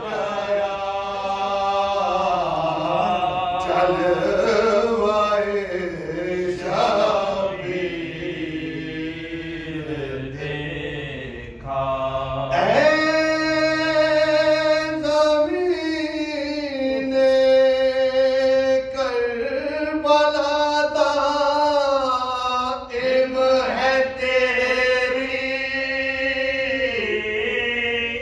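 Men's voices chanting an unaccompanied devotional recitation: a lead voice at the microphone with two others singing along in long, wavering held notes. A louder, higher phrase begins about twelve seconds in.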